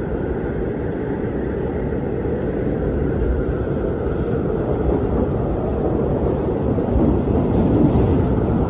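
Strong wind howling, a steady low rush with a fainter higher howl above it, swelling slightly near the end.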